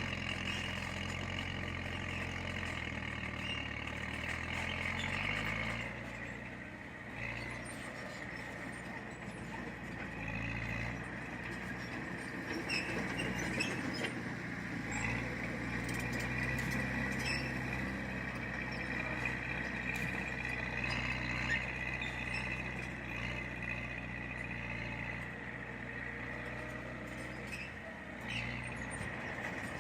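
Heavy earthmoving machine's diesel engine running under varying load, its pitch dropping a few seconds in and climbing again later, over a steady high whine and occasional short metallic clanks.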